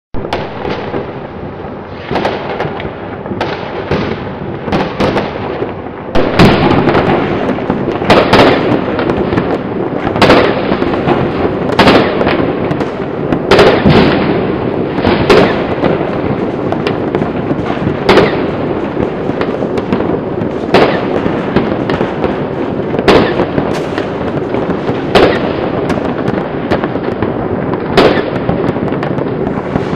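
Fireworks going off: a continuous din of many distant bangs and crackle, with louder single bangs about every two seconds. The bangs get louder about six seconds in.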